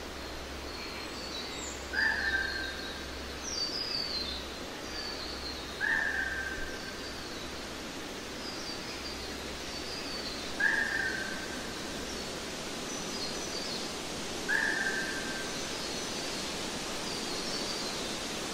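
Birds calling over a steady hiss: one short, slightly falling note repeats about every four seconds, with fainter high chirps in between.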